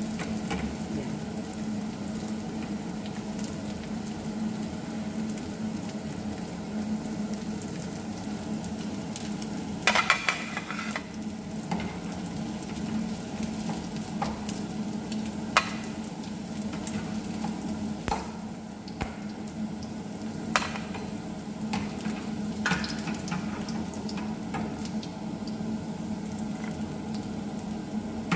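Tuna nuggets shallow-frying in hot oil in a pan, sizzling steadily. A metal slotted skimmer clinks a few times, loudest in a short cluster about ten seconds in.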